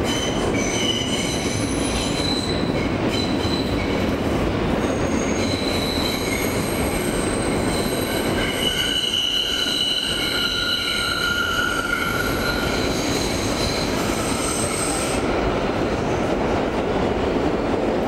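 Kawasaki R143 subway car running, heard from inside the car: a steady rumble with high, steady wheel squeal over it that peaks about halfway through and stops about 15 seconds in, leaving only the rumble.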